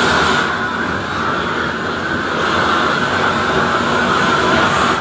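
Propane roofing torch burning with a steady, loud hiss as its flame melts a modified-bitumen cap sheet along the seam for torch-down.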